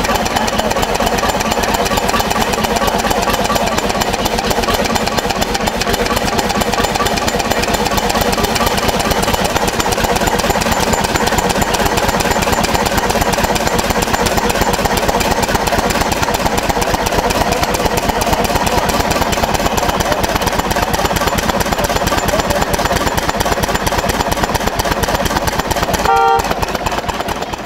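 1935 Jyden 20 HP two-cylinder two-stroke diesel stationary engine running steadily with a fast, even firing beat. A brief pitched tone sounds near the end.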